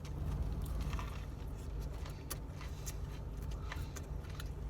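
Steady low hum of an idling car engine, with faint scattered clicks and rustles.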